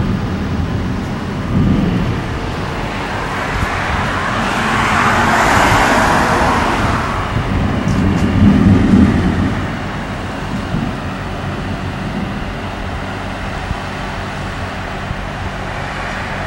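A car passing on the road, its tyre and engine noise swelling and fading about four to seven seconds in, over low rumbles of thunder from an approaching thunderstorm, the clearest about eight seconds in.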